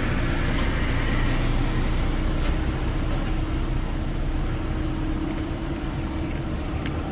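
Steady low rumble and hiss of a car idling, heard from inside the cabin, with a faint steady hum running under it.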